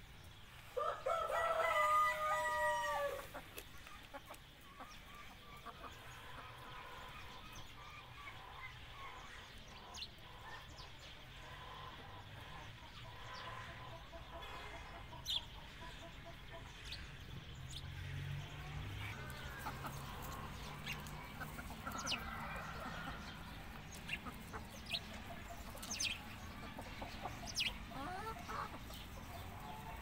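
A black silkie rooster crowing once, about a second in: a single crow of some two and a half seconds that dips at the end. After it come quieter clucking and a few short, high chirps.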